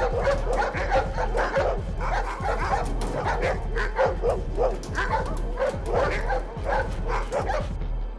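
Several caged Dobermans barking rapidly and frantically, their barks overlapping. The barking stops near the end, over a low throbbing film score.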